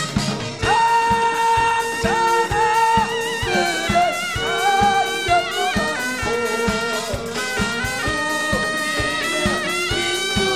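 Live band playing upbeat music: a steady drum beat under a held, wavering lead melody.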